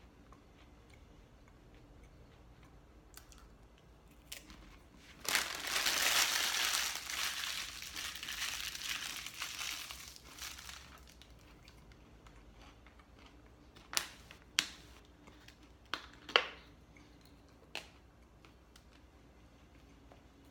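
Crinkly wrapping crumpled by hand for about six seconds, followed by a handful of sharp, separate clicks.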